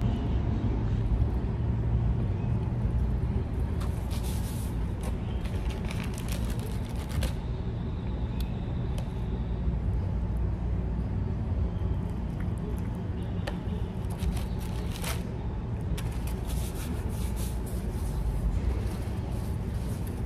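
Steady low rumble of a car heard from inside the cabin, with bursts of crackling and rustling as a takeout burger is handled and eaten.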